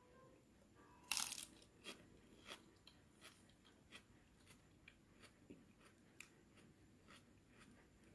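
A short crisp crunch about a second in, then scattered light clicks and scrapes, as fried rice is scooped with a wooden spoon onto a fresh lettuce leaf on a ceramic plate.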